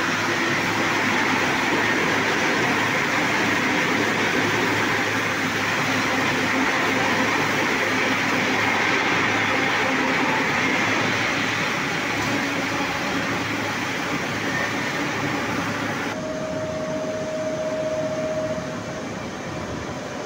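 Steel rolling mill machinery running: a loud, steady hiss over a low hum. About three-quarters of the way in the sound changes abruptly and a single steady tone holds for two or three seconds.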